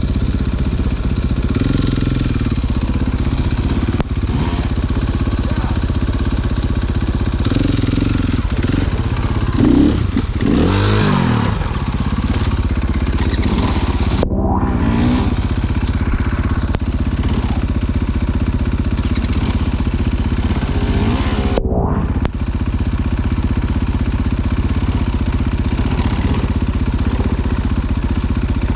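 Off-road motorcycle engine running under way on a trail, with the revs rising and falling several times between about ten and fifteen seconds in and again a little past twenty seconds.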